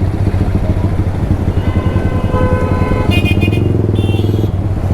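Yamaha R15 V3's single-cylinder engine running steadily through an aftermarket Akrapovic exhaust while riding. A few thin high tones sound over it in the second half.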